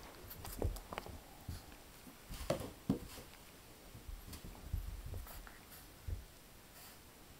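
Ten-week-old Jack Russell puppy playing with toys on carpet: irregular scuffles, soft thumps and clicks, the loudest two knocks coming about two and a half and three seconds in.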